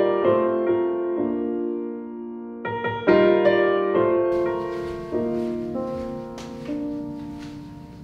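Calm background piano music, slow chords and single notes struck in phrases that ring and fade. A faint hiss sits under it in the second half.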